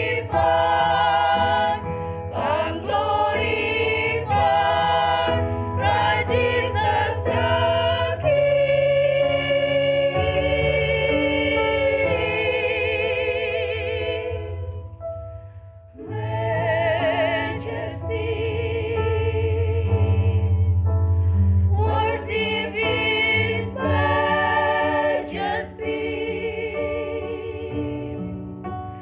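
Women's choir singing a slow English worship song in unison, with long held notes; the singing fades to a brief pause about halfway through, then the next phrase begins.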